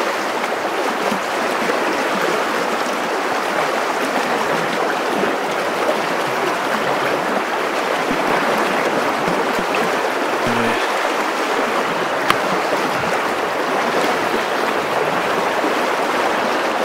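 Fast, shallow river current rushing and splashing steadily around an angler's legs as he wades. A single sharp click about twelve seconds in.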